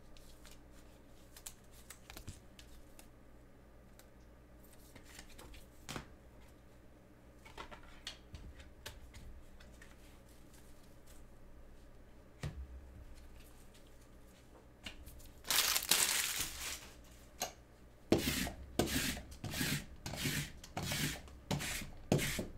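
Faint rustles and clicks of card handling, then about three-quarters of the way through a loud tearing crinkle of packaging, followed by a run of quick crinkles, about two a second.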